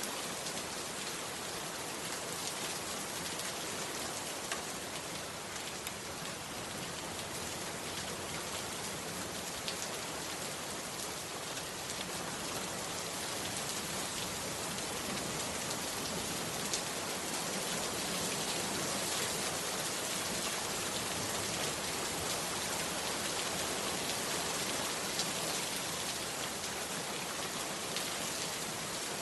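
Heavy rain falling steadily, a dense hiss with sharp drops ticking through it, growing slightly louder about halfway through.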